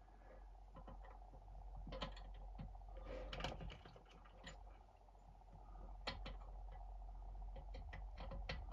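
Scattered light metallic clicks and taps of hand tools being handled on a diesel heater, as a glow-plug socket is fitted onto the plug.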